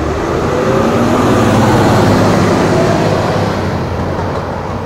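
Road traffic passing close by: a van and cars drive past, the noise swelling to a peak about two seconds in and then easing off.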